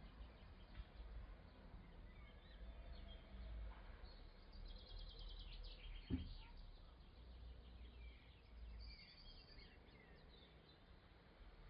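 Faint background with birds chirping, including a quick run of repeated notes about five seconds in and a short call near nine seconds, over a low steady rumble. A single soft thump just after six seconds.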